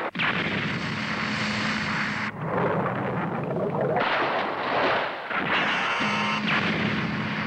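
Animated battle sound effects: a missile launching with a sharp start and a rushing hiss, then a blast of spray as it misses and hits the sea about four seconds in, then the drone of a jet fighter with a steady low hum.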